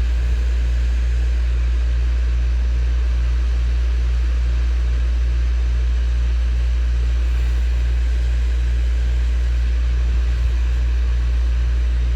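Hot air rework station running steadily, blowing hot air onto a logic-board capacitor to melt its solder for removal: a loud, even low hum with a faint regular pulsing over a soft hiss.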